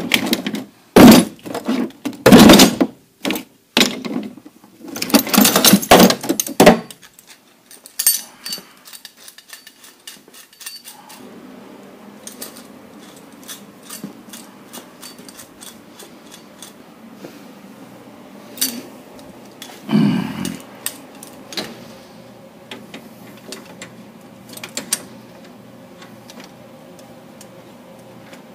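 Steel hand tools (C-clamps and gear pullers) clanking and rattling against each other as they are rummaged through in a metal toolbox drawer, in several loud bursts over the first seven seconds. After that come quieter scattered clicks and taps, and a dull thump about twenty seconds in.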